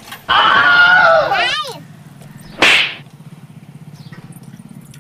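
A young child's high-pitched wordless squeal, sliding down in pitch at its end, followed about a second later by one short, sharp hiss. A faint low hum runs underneath.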